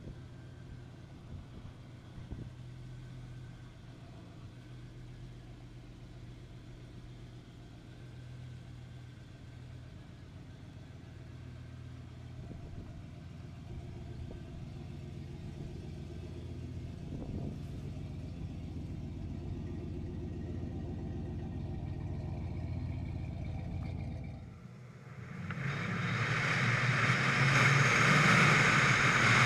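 Oldsmobile Cutlass engine idling with a steady low hum that grows slightly louder. About 25 seconds in it gives way to the car driving, its engine under loud wind and road rush over the hood.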